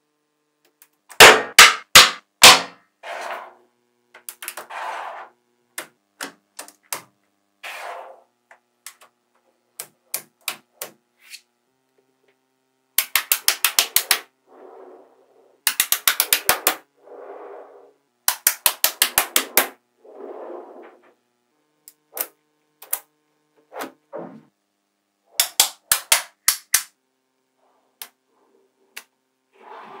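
Small magnetic balls clicking and snapping together as they are built into a model: scattered single sharp clicks, several quick runs of clicks, and a few duller knocks with a slight ring.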